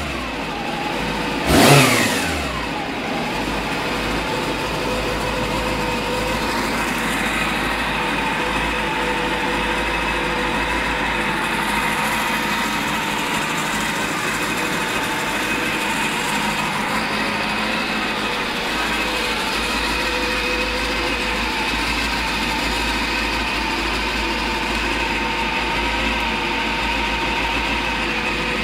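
Honda CB400 motorcycle engine blipped once about a second and a half in, its revs falling quickly back, then idling steadily.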